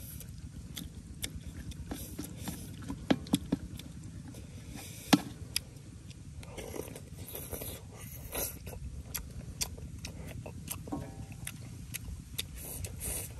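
Eating sounds: a spoon scraping and clicking against a metal wok, with chewing, over a steady low rumble. A few of the clicks in the middle stand out loud and sharp.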